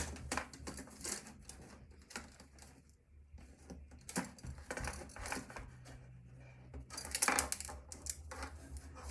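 Scattered clicks and light taps of hard plastic being handled and pried at, as a part of an old computer is worked loose from its plastic clips, with a busier run of clicks about seven seconds in.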